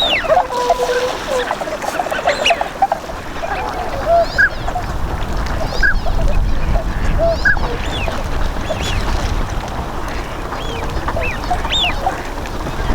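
A flock of Bewick's swans calling, many short honking calls overlapping and scattered throughout.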